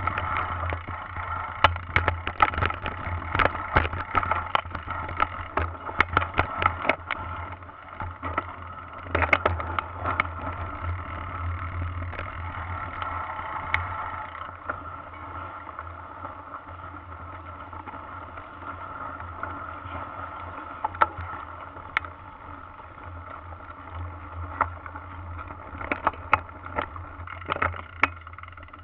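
Mountain bike ridden over a dirt forest singletrack, heard from a camera mounted on the handlebar. A steady low rumble runs throughout, with frequent sharp rattling knocks as the bike goes over bumps. The knocks come thickly in the first several seconds and again in a cluster near the end.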